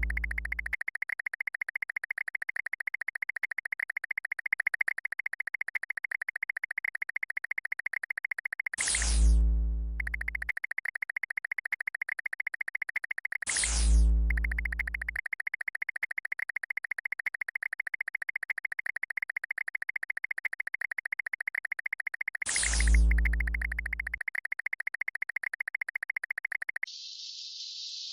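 Synthesized game sound effects: a fast, buzzing electronic tone. It is broken three times by a falling swoosh with a deep boom. About a second before the end it switches to a steady hissing rattle.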